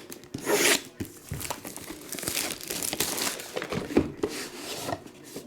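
Plastic shrink wrap being torn open and crumpled in the hands, an irregular crinkling rustle with a loud tearing burst about half a second in.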